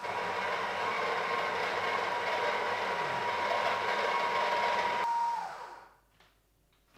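The Sage (Breville) Oracle's built-in conical burr grinder grinding coffee beans straight into the portafilter: a steady whir with a high, even whine. It winds down and stops about five seconds in, once the dose is ground.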